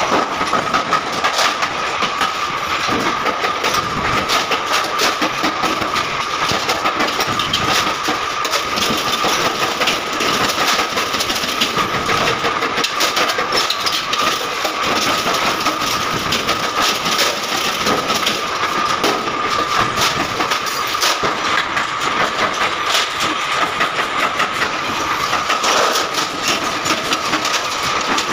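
Sheet-metal workshop din from gas stove manufacture: a steady high-pitched machine whine under frequent irregular metallic clanks and clicks of machinery and stainless steel stove parts.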